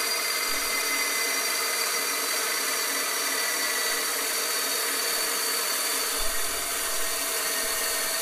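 Inland DB-100 diamond band saw running, its diamond blade grinding through a glass bottle under a water drip. It makes a steady hiss with a thin, high whine.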